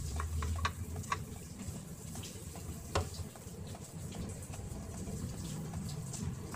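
Small clicks and taps of hands breading shrimp, pressing them into flour and breadcrumbs on plates, with one sharper tap about three seconds in. A low steady hum runs underneath.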